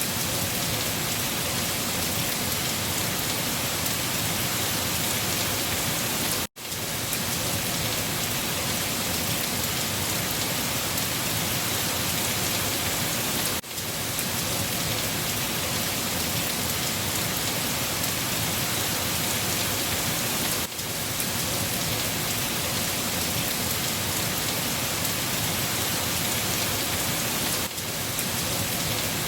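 Steady heavy rain, an even hiss of many drops falling on a surface. It cuts out briefly about every seven seconds, and the first of these drop-outs, a little over six seconds in, is an almost complete break.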